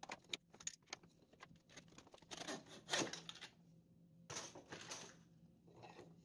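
Scattered knocks and clicks of a sawn wooden block being handled in a bench vise, with a sharp crack about three seconds in as the sawn waste breaks away from the block.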